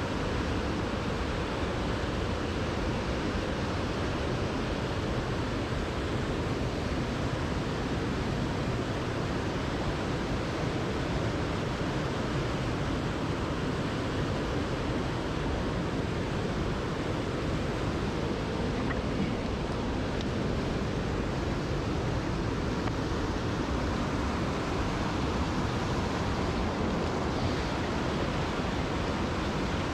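River water rushing past in a fast current, a steady unbroken noise.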